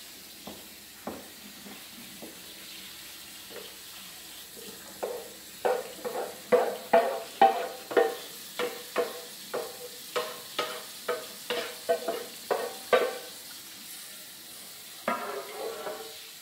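Wooden spatula scraping and knocking against a metal skillet while browned ground meat is drained over the sink. It is a run of sharp knocks, about two a second, for several seconds, with a few more near the end.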